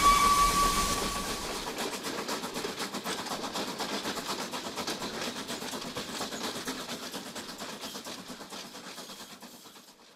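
Steam whistle of the LNER A3 locomotive Flying Scotsman sounding one steady note, which stops about a second and a half in, then the locomotive and its train running at speed, a fast rhythmic rattle and hiss that gradually fades away.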